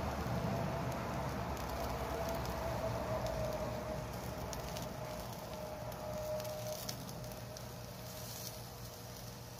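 Whole quails grilling on a wire grate over charcoal: a steady sizzle and crackle with scattered sharp pops.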